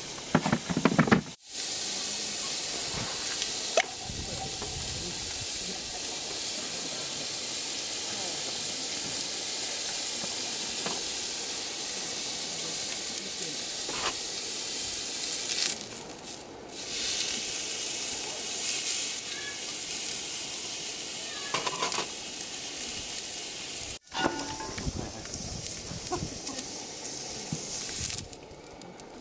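Beef steak searing on a ribbed cast-iron grill plate over a gas stove: a steady frying sizzle. It is briefly interrupted twice, with a short, louder burst of noise in the first second or so.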